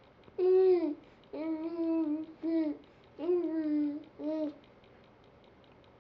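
Small child making hummed, closed-mouth vocal noises: five pitched 'mmm' sounds, each rising briefly then held, in quick succession, stopping about four and a half seconds in.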